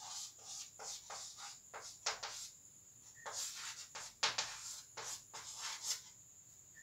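Chalk writing on a blackboard: a run of short, irregular strokes as a word is written.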